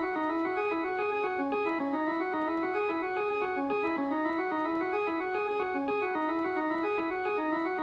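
Background music: a keyboard with an organ-like sound playing a quick, repeating run of short notes at a steady level.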